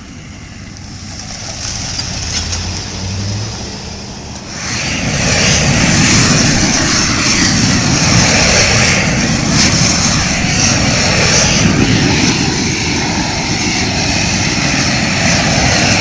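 Propane torch burning, a steady loud rushing noise that comes up sharply about four and a half seconds in, heating cold patch asphalt to soften it.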